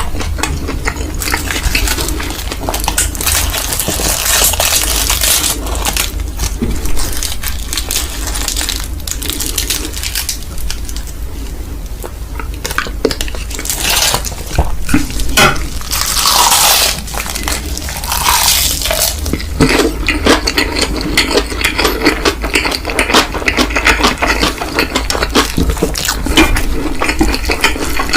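Close-miked eating of Indonesian mi goreng instant noodles, with many small clicks and clinks of cutlery against a bowl. A few louder hissing bursts come midway.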